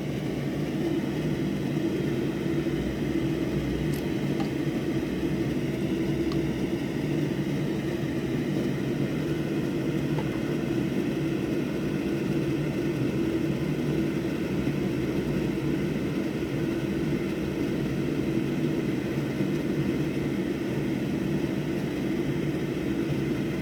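Steady electric whir with a low hum from running bench repair equipment at a microsoldering station, with a couple of faint ticks a few seconds in.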